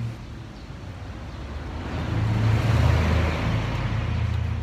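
A motor vehicle passing by: its engine rumble and road noise swell to a peak about three seconds in, then fade away.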